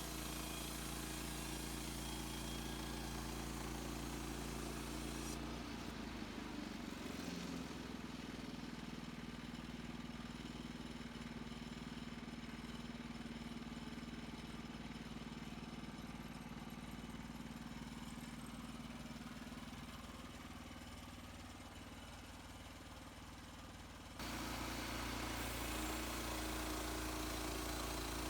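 Portable sawmill's gas engine running steadily. About five seconds in, the sound turns quieter and lower-pitched, then switches back abruptly near the end.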